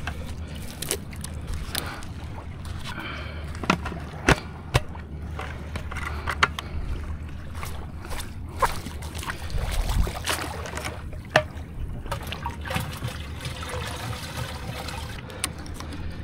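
Shallow water sloshing and trickling around a person wading at the shoreline, with scattered sharp knocks and clicks from handling gear and a steady low rumble of wind on the microphone.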